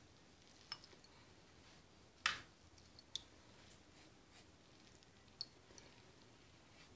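Pastry brush dabbing lemon syrup onto a baked semolina cake, nearly silent, with four short clicks and taps from the brush and bowl. The sharpest tap comes about two seconds in.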